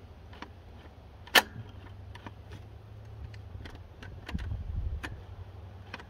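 Scattered metallic clicks and taps from a Mercedes OM617 diesel's throttle linkage and injection-pump stop lever being worked by hand with the engine off, with one louder click that rings briefly about a second and a half in.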